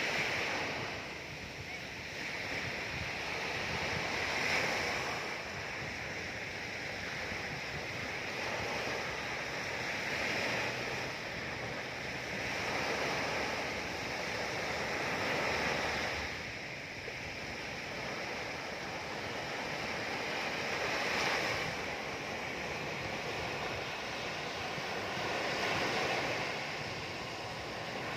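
Ocean waves washing in, a steady surf that swells and eases about every five seconds.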